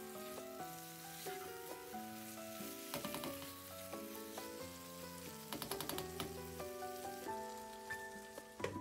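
Masala sizzling in a nonstick pan as fried drumsticks and potatoes are stirred through it with a spatula, with clusters of quick scrapes and clicks about three seconds in and again near six seconds. A background melody of single held notes plays alongside.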